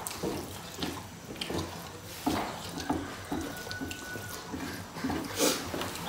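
Wet mukbang eating sounds: lip-smacking and chewing of dal bhat eaten by hand, with fingers squishing and mixing the rice on metal plates. Short, irregular, wet clicks throughout, the loudest about five and a half seconds in.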